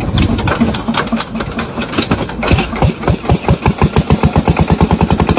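Small engine being started: a few uneven chugs, then firing beats that come faster and faster until it settles into a steady run. Its exhaust is blowing into a rubber glove stretched over the upright exhaust pipe.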